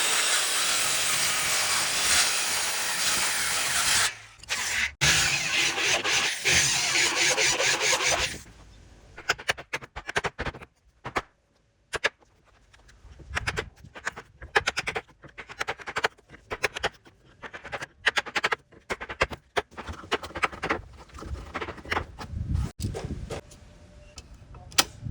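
A power tool cutting into wood, running steadily for about eight seconds with a brief stop about four seconds in. It then gives way to irregular sharp knocks and scrapes of hand work in the wood.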